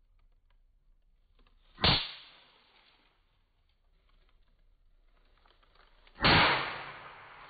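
Two sharp cracks about four seconds apart as small patches of dried nitrogen triiodide detonate at the touch of a paper towel brushed over them. The second crack dies away more slowly.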